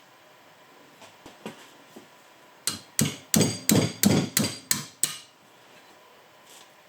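Hammer striking metal: a few light knocks, then a run of about eight sharp ringing blows at about three a second.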